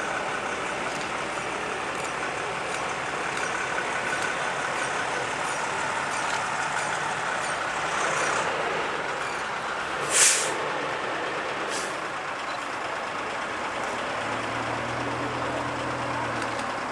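Diesel coach engine running as the coach drives past. About ten seconds in comes one short, sharp hiss of air from its air brakes, and a fainter hiss follows a little over a second later.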